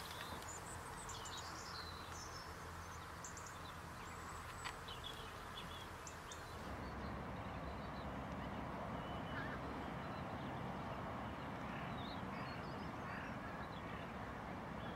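Faint, scattered calls of estuary shorebirds and waterbirds over steady outdoor background noise. About halfway through the sound changes and a low rumble like wind on the microphone comes in under fainter calls from a roosting oystercatcher flock.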